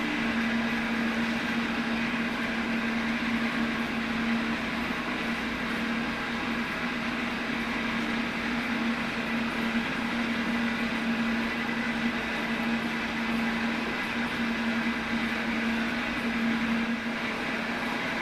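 Metal shaper running with a steady hum while its radius tool takes passes across an aluminum block.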